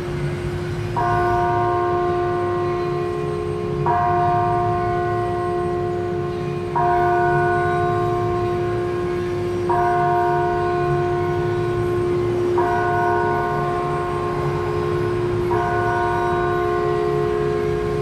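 Church bells worked into an ambient music piece: a steady bell drone underneath, and a bell chord struck about every three seconds, six times. Each chord holds level until the next strike instead of dying away.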